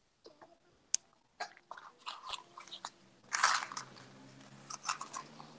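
About a dozen irregular short clicks and crunchy rustles. The loudest comes a little past the middle, and a faint low hum comes in after it.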